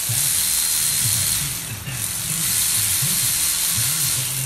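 Power ratchet running as it drives fasteners on an engine block, in two spells with a brief pause a little under two seconds in.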